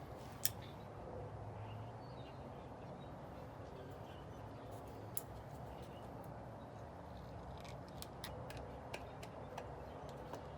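A few faint, sharp clicks and ticks of doorbell wires being fastened to the screw terminals of a video doorbell, scattered over a steady low background hiss, with a handful close together near the end.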